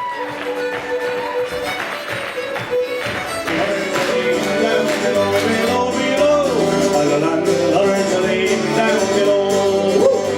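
Folk music led by a fiddle melody. A fuller accompaniment with guitar and bass comes in about three and a half seconds in, and the music gets louder.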